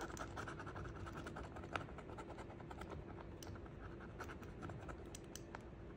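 A scratcher tool scraping the foil circles of a paper scratch-off savings card in quick, light, continuous strokes.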